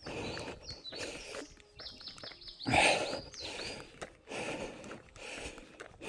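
Hard breathing and footfalls of a runner climbing a mountain trail, coming in swells a little under a second apart, with one louder burst about three seconds in. A bird sings a quick series of repeated high notes between about one and three seconds in.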